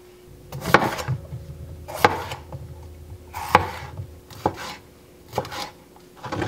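A kitchen knife slicing through an orange bell pepper and knocking down onto a cutting board, about six cuts a second or so apart.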